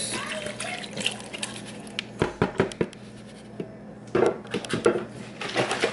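Chicken broth pouring from a carton into a stainless steel pot trails off in the first second, then comes a run of short knocks and scrapes as things are handled around the pot.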